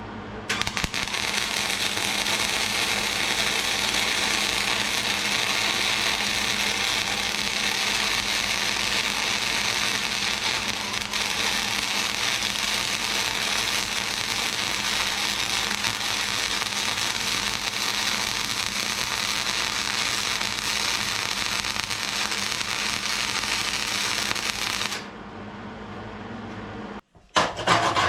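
Hobart Handler 140 MIG welder running .030 flux-cored wire, the arc crackling and sizzling steadily as a bead is laid, for about 25 seconds before it stops abruptly.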